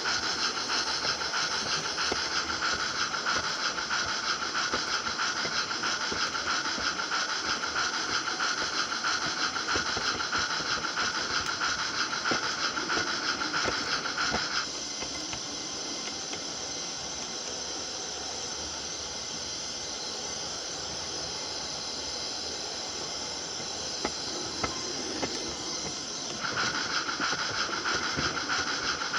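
Simulated steam-locomotive sound from an LGB Stainz G-scale model train: a fast, steady chuffing with hiss. About halfway through it turns quieter and duller for roughly twelve seconds, then comes back louder and brighter.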